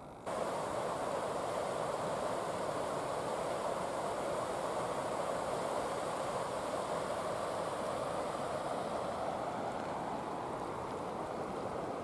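River water rushing over a low weir: a steady rushing noise that cuts in abruptly at the very start.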